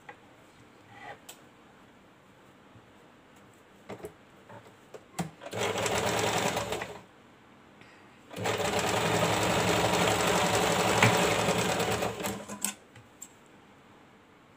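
Electric sewing machine stitching a fabric strip in two runs: a short one of about a second and a half, then a longer one of about four seconds. A few light clicks come before and between the runs.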